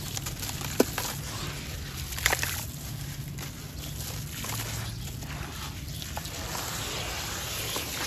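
Wet sand-cement chunks crumbling in hands and falling into a basin of muddy water, with sloshing and trickling of water and grit. A sharp crack sounds about a second in and a louder cluster of crunches a little after two seconds.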